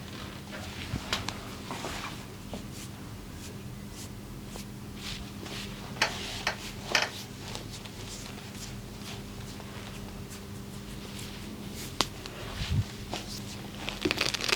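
Hands working during a massage: scattered soft rustles and taps of skin and clothing, a cluster of stronger strokes about six seconds in, and a single sharp click about twelve seconds in, over a steady low hum.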